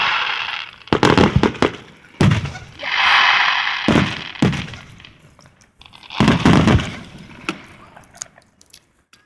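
Aerial fireworks bursting: several sudden booms a second or two apart, each dying away, with about a second and a half of crackling after the one about two seconds in.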